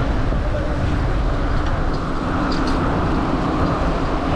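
Steady low rumble of wind and road noise while riding a road bicycle, with traffic noise mixed in.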